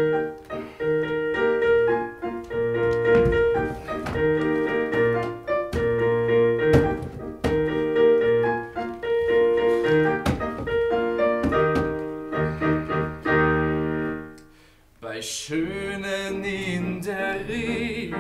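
Solo piano playing an instrumental interlude of a stage-song accompaniment. After a short pause near the end, a man's singing voice comes in over the piano.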